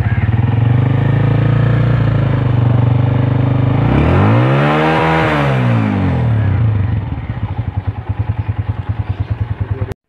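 Honda CG 125's single-cylinder four-stroke engine idling in neutral, revved once about four seconds in, its pitch rising and then falling back to a steady idle.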